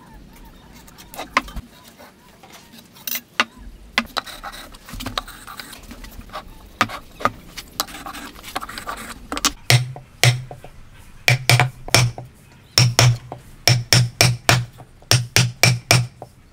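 Steel chisel struck repeatedly to chop into a hardwood beam along a marked line: a run of sharp knocks, often in quick pairs, starting about ten seconds in. Before that come light clicks and scratches of marking out with square, pencil and marking gauge.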